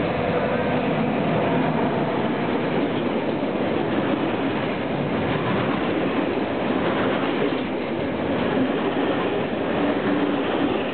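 Freight train hauled by a Serbian Railways class 444 electric locomotive passing close by: the locomotive goes by first, then a long string of empty stake wagons rolls past with a steady noise of wheels on rails.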